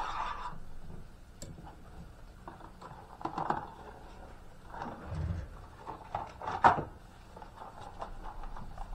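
Handling noise from a long cardboard blowgun box and its parts: cardboard sliding and scraping on a table, rustling, and light knocks and clicks, with a dull thump about five seconds in and a sharper knock a little before seven seconds.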